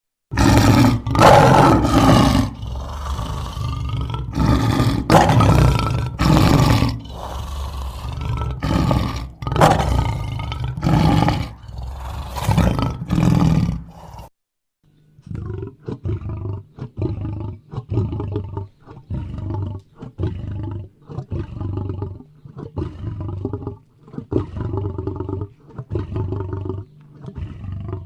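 Lion roaring: a loud series of deep roars, then after a brief pause about halfway through a second, quieter bout of shorter roars repeated about once a second.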